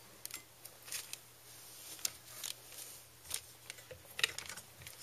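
Small plastic bottles and cups being handled, with scattered light clicks and taps as the caps are put back on the bottles.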